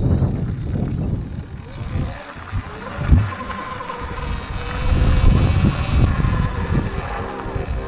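Sur-Ron Light Bee X electric dirt bike being ridden off-road: a low rumble of wind and rough ground with a faint motor whine gliding up and down, and a thump about three seconds in.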